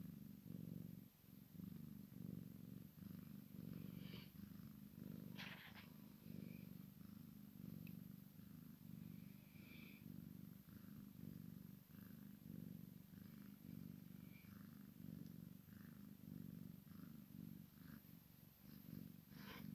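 A cat purring faintly and steadily, the purr swelling and dipping about once a second.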